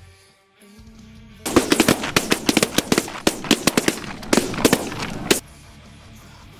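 A barrage of shotgun fire from several hunters shooting at snow geese: rapid, overlapping shots, several a second, starting about a second and a half in and lasting about four seconds, then stopping abruptly. Music plays underneath.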